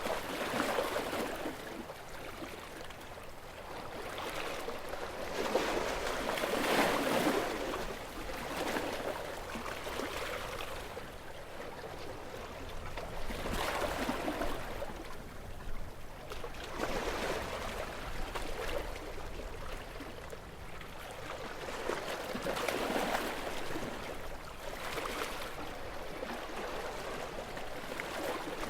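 Gentle sea waves washing in and drawing back, each wash swelling and fading over a few seconds, about eight in all.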